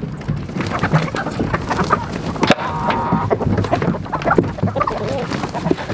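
A flock of chickens clucking as they crowd in for feed, with one longer held call about halfway through.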